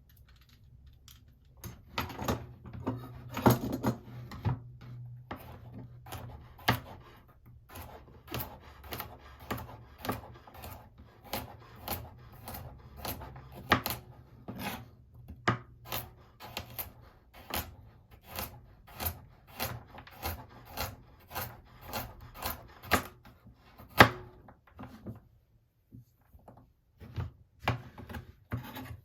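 Knife chopping a carrot on a wooden cutting board: a steady run of sharp knocks, about one and a half a second, with some scraping early on. The knocks pause about 25 seconds in, and a few more follow near the end.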